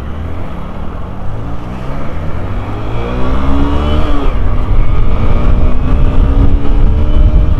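Motorcycle engine accelerating from low speed in traffic. Its pitch climbs, falls back about four seconds in, then climbs again slowly as the bike gathers speed, over a steady low rumble.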